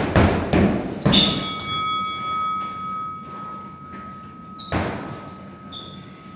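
Punches landing on a heavy bag in a fast flurry of about five hits, followed by a clear metallic ringing tone that holds for several seconds. One more hit lands near the end.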